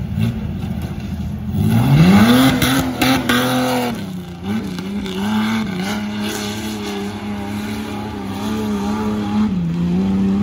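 Off-road racing Jeep's engine revving hard as it launches, rising sharply about two seconds in, then held at high, fairly steady revs as it climbs the dirt course. A few knocks are heard near the peak of the rev.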